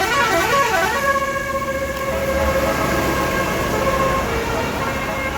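Tour bus's Basuri telolet musical horn playing a tune: a warbling, siren-like glide up and down for about the first second, then held notes that step from one pitch to another.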